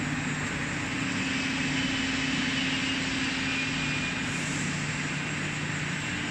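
Industrial machinery running with a steady hum: two low steady tones under an even hiss.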